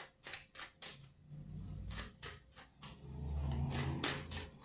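A deck of tarot cards being shuffled overhand in the hands: a run of soft, quick card slaps and riffles in small clusters, with a low rumble about three to four seconds in.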